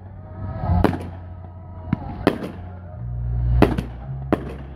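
Aerial firework shells bursting in the sky: about six sharp bangs spread unevenly over a few seconds, two of them coming in quick succession near the middle.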